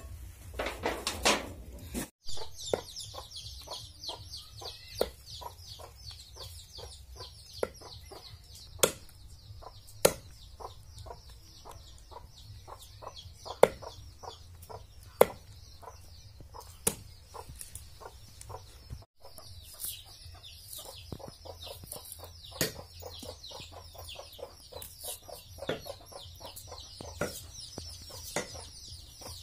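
A large kitchen knife chopping chicken on a wooden stump, giving sharp irregular knocks, the loudest in the middle. Steady high chirping of chickens carries on underneath.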